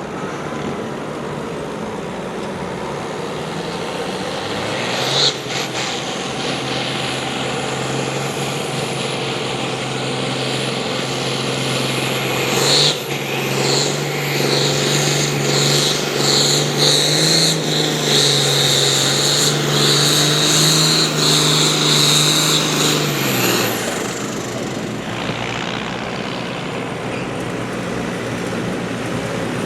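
Pulling tractor's engine working hard under full load during a pull. It comes up to a steady pitch about five seconds in, climbs a step higher about thirteen seconds in, then drops off about twenty-four seconds in as the run ends.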